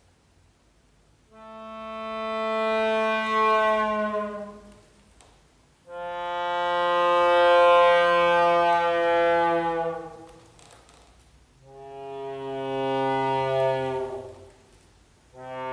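Solo accordion playing long sustained chords over a low bass note, each swelling up and then fading away, with short pauses between them: three chords, and a fourth beginning near the end, after about a second of near silence at the start.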